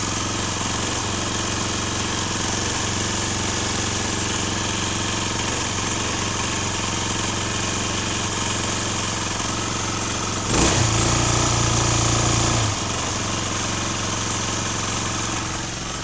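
Ferrex 3300W petrol inverter generator engine running steadily. About ten seconds in, a sudden knock starts a louder, deeper spell of about two seconds that cuts off abruptly.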